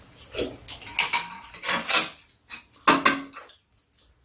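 Metal spoon and chopsticks clinking and scraping against ceramic bowls while eating: a handful of separate clinks, the loudest about three seconds in.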